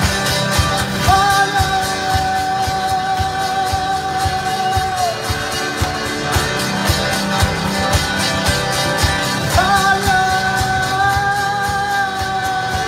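A man singing and strumming an acoustic guitar, holding two long sung notes, one from about a second in and another starting near ten seconds, over a steady strum.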